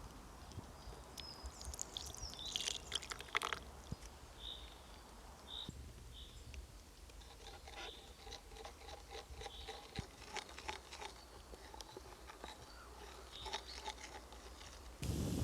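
Irregular crisp crunching and small clicks, the sounds of food being handled and cut.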